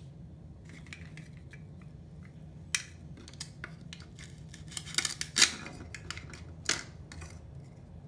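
Plastic toy knife tapping and scraping on a Velcro-joined plastic toy kiwi, and the Velcro strip tearing as the halves pull apart. This comes as scattered clicks and short raspy rips, the loudest about five seconds in.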